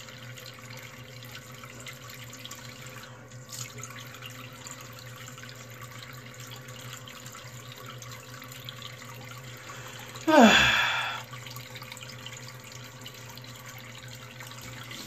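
Steady hiss of a bathroom tap running. About ten seconds in, a person gives a short, loud groan that falls in pitch.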